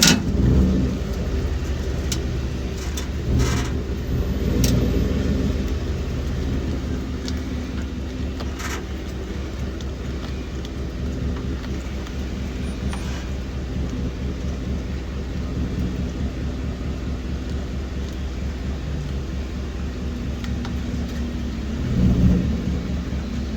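2012 Ford F-150 pickup running with a steady low rumble, with a few sharp pops in the first nine seconds: the rear-end popping noise that shows up when pulling out of the driveway, still there with new shocks and springs.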